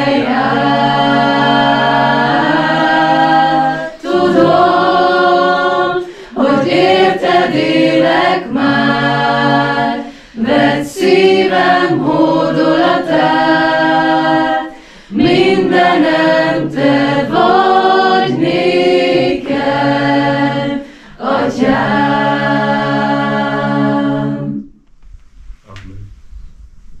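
A small group of people singing a Hungarian worship song a cappella, phrase after phrase with short breaths between. The singing ends near the end, leaving only faint room sound.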